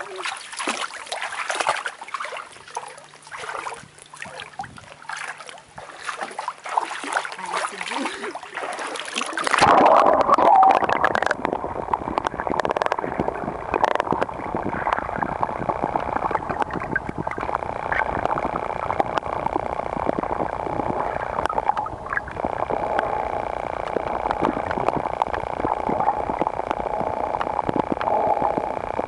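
Lake water splashing and trickling around a camera held at the surface. About a third of the way in the microphone goes under, and the sound turns to a muffled, steady underwater wash with gurgling, loudest just after it submerges.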